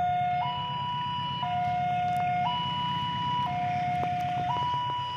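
Railway level-crossing warning alarm sounding a two-tone high-low signal, each tone held about a second, warning that a train is coming. A low steady rumble runs underneath.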